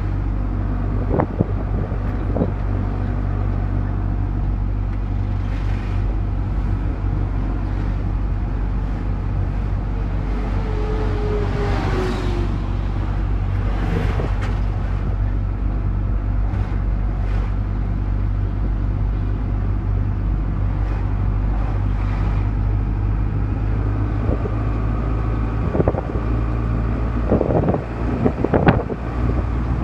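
A motor vehicle's engine and road noise heard from inside the cabin while driving, a steady low drone. A few sharp knocks and rattles come near the start and again in a cluster near the end.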